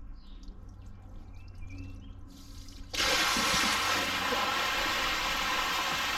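Water gushing out of a plastic rainwater tank's open outlet after its tap is unscrewed, splashing onto gravel and over hands. It starts suddenly about halfway in and keeps up a loud, steady rush: the full tank is draining through the wide-bore fitting.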